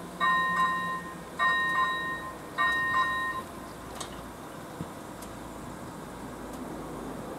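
Level-crossing warning bell, the first-generation electronic bell of AŽD 97 warning signals, ringing a chime about every 1.2 seconds under a low hum from the lowering barriers. Both stop about three and a half seconds in as the barriers come fully down, leaving a steady low background noise.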